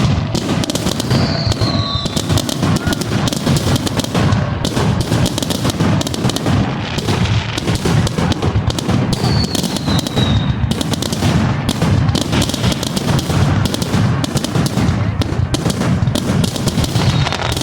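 Fireworks going off in a dense, continuous barrage of rapid bangs and crackling that never lets up. Two short falling whistles come through, one about a second in and one about nine seconds in.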